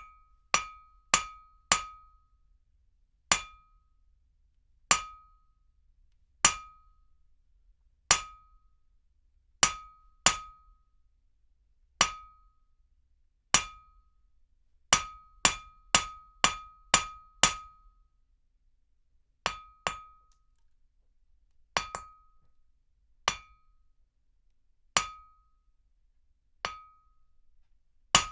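Hammer striking metal: about two dozen sharp clanks, each ringing briefly at one clear pitch. The blows come at uneven intervals, a second or two apart, with a quick run of six about halfway through.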